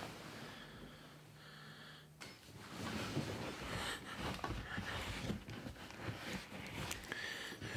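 A man breathing heavily, with soft rustling and small clicks as he moves. A faint steady hum underneath for the first couple of seconds.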